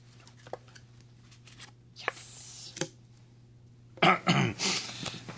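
Playing cards being handled and set down on a table: a few soft clicks and a brief sliding rustle, over a steady low hum. About four seconds in, a louder wordless man's voice sound takes over.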